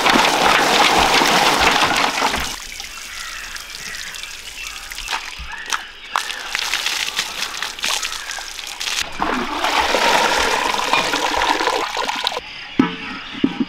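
Water poured in a stream over fresh green chillies in a perforated basin, and then over bunches of fresh herbs, to rinse them: a loud rush of pouring and splashing at first, quieter splashing and dripping, then a second heavy pour from about nine seconds in. A few short knocks near the end.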